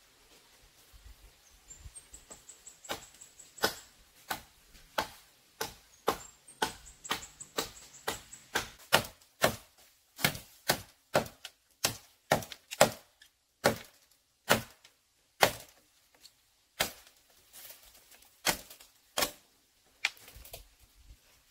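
A blade chopping into bamboo: a long run of sharp strokes beginning about three seconds in, two to three a second at the fastest, spacing out toward the end.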